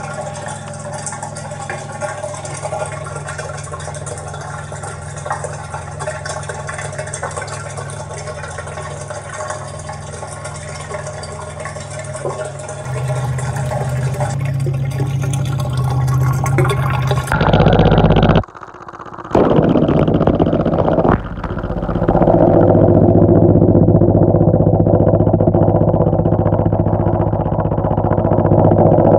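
Whirlpool tub running: a steady mechanical hum with water churning. It gets louder about halfway through and again a few seconds later, and drops out briefly twice.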